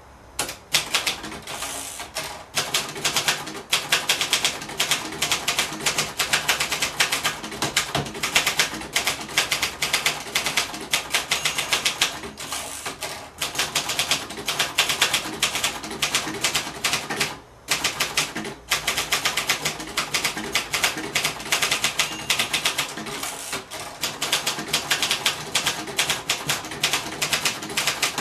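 Typing on a 1965 Singer Scholastic Model T4 manual portable typewriter, a rebranded Royal Lark: a steady run of key and typebar strikes, several a second. There is a brief pause about two-thirds of the way through.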